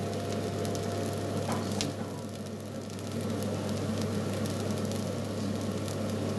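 Batata poha (flattened rice with potatoes and fried onions) sizzling in a hot wok, with fine crackles over a steady low hum.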